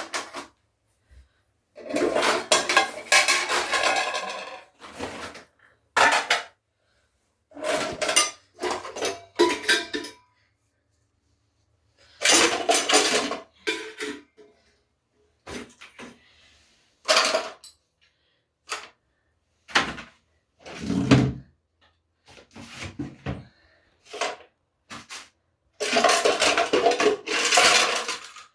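Clattering and clinking of pots and dishes being handled, in bursts a second or two long with pauses between, and a dull thump about 21 seconds in.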